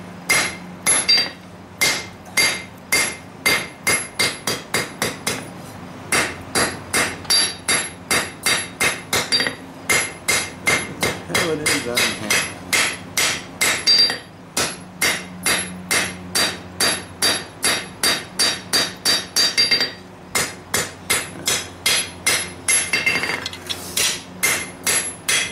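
Hammer blows on hot lawnmower-blade steel over an anvil, forging the kukri blade. The blows come in steady runs of about three a second with short pauses between runs, and each strike rings.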